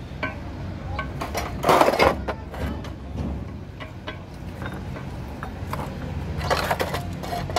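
Metal clinks and short rattling scrapes as steel gears are slid and turned onto the splined main shaft of a truck gearbox, with two louder rattles, one about two seconds in and one near the end, over a steady low hum.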